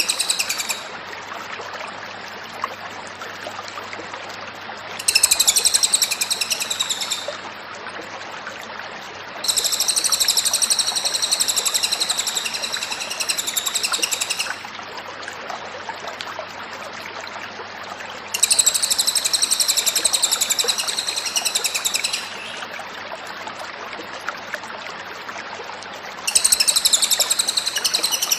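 Cililin bird singing in bouts of fast, high, repeated chirping, each lasting a few seconds, with pauses between them.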